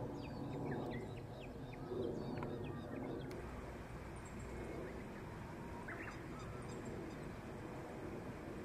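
Grey-headed lapwings giving harsh, repeated cries over a background of other birds chirping. About three seconds in the sound cuts off abruptly to a quieter background with only scattered bird calls.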